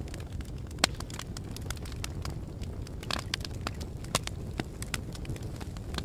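Open fire crackling: a steady low rumble of flames with irregular sharp pops and snaps, the loudest pop a little under a second in.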